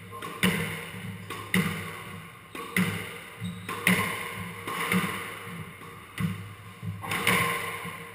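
Squash ball being hit again and again, racket strikes and front-wall hits echoing in the enclosed court, about one a second.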